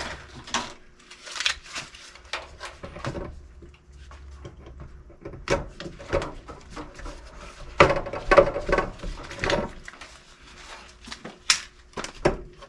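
Scattered knocks, clicks and rattles of objects being handled, with a denser cluster of clatter in the middle and a sharp knock near the end.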